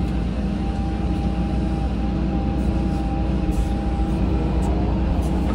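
Caterpillar 313 hydraulic excavator's diesel engine running steadily under a faint thin whine that fades out about four seconds in.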